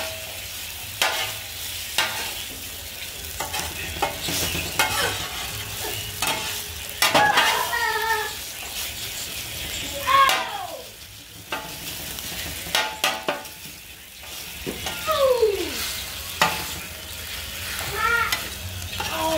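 Metal spatula scraping and chopping al pastor pork on a hot steel flat-top griddle, sharp scrapes and taps over a steady frying sizzle. Several short pitched sounds sliding downward in pitch cut in, the loudest about a third of the way and halfway through.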